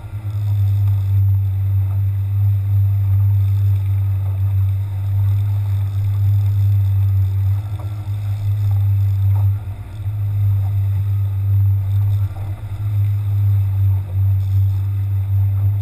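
Fishing boat's engine running steadily under way, a loud low drone, dipping briefly about ten seconds in.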